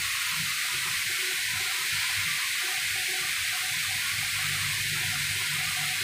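Steady, even hiss with a faint low hum beneath, without distinct knocks or clicks.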